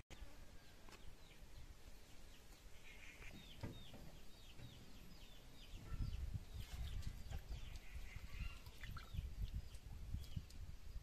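A bird chirping over and over, each call a short falling chirp. A low rumbling noise joins in about halfway through.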